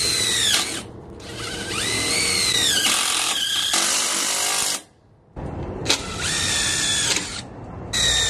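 DeWalt cordless drill running in several short bursts as its bit works into a square steel fence rail. Its whine rises and falls in pitch within each burst, with a brief pause about five seconds in.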